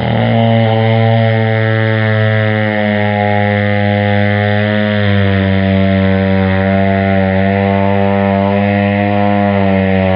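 A long, loud fake fart sound: a steady low buzzing tone that wavers slightly in pitch and dips near the end.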